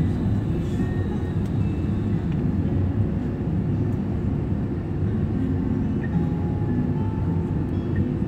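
Steady low rumble inside the cabin of an Airbus A321 airliner rolling along the ground after landing: engine and wheel noise heard through the fuselage.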